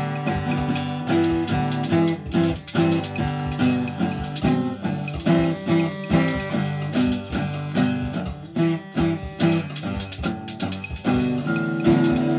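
Guitar playing: a continuous run of plucked notes, with a chord struck and left ringing near the end.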